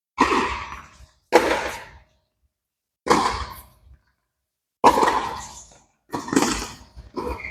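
Tennis ball being struck with rackets in a rally: six sharp hits, one every second or so, each with a short echoing tail.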